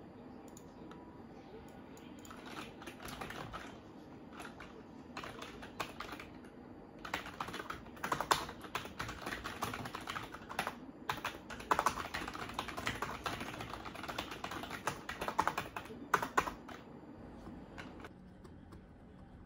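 Typing on a computer keyboard: a quick, uneven run of key clicks that starts a couple of seconds in, is busiest in the middle and eases off near the end.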